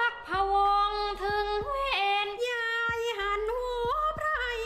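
A woman chanting khap sepha, Thai narrative verse sung in long, wavering held notes that bend between pitches, over short regular clicks.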